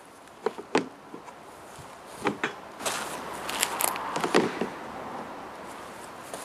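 The end piece of a modular livestock feeder trough being pushed and slid into the end of the trough. A few light knocks, then a scraping, rubbing sound as it seats, with another knock partway through.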